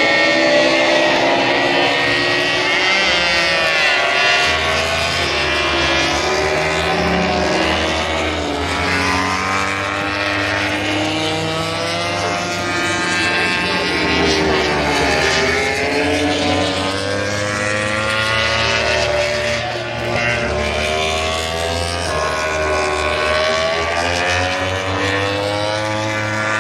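Several motorcycle engines revving at once, their pitches rising and falling and overlapping, over a steady low engine drone.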